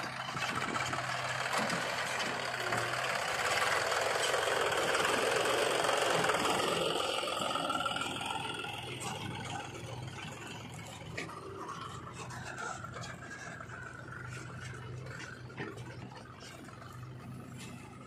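Diesel engines of a JCB 3DX backhoe loader and a Swaraj 744 FE tractor running steadily, with a louder rushing swell over the first several seconds that then dies away.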